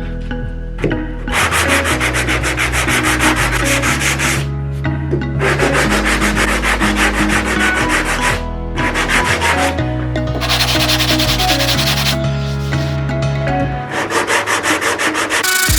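Sandpaper rasping over cured body filler on a car panel, in runs of a few seconds with short breaks. Background music with a held bass line plays underneath.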